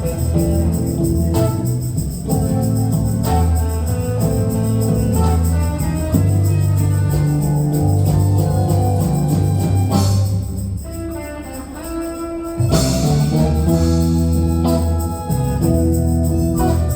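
Live instrumental band music from guitars and percussion, playing sustained chords over a steady bass. About ten seconds in it thins to a quieter passage, then the full band comes back in at about twelve and a half seconds.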